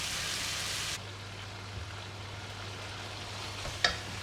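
Chicken hearts and liver frying in a tomato masala, sizzling steadily in the pan. The sizzle is louder and brighter for the first second, then drops suddenly to a quieter hiss. A single short knock comes near the end.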